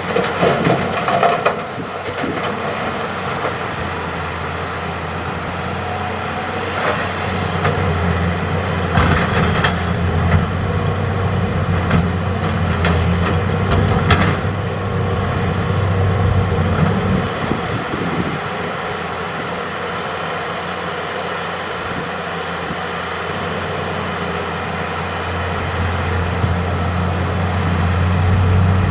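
Hitachi excavator's diesel engine running steadily under working load, with a few sharp knocks and rattles of rock being dug and loaded: in the first two seconds, around 7 and 9 seconds in, and near 14 seconds.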